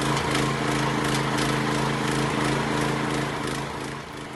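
Motor-driven feed pellet machine running while shrimp-head waste and bran are pressed through it into fish-feed pellets: a steady mechanical hum with a faint regular ticking, dropping a little in level near the end.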